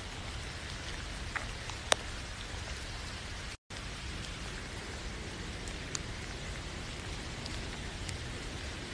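Steady rain falling, with a few sharp single drop ticks standing out near the start and later on. A split-second gap of silence cuts in a little over a third of the way through.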